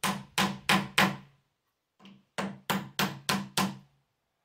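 Hammer striking galvanized nails driven at an angle into a wooden porch rail, sharp ringing metal-on-metal taps at about three a second: four blows, a pause of about a second, then five more.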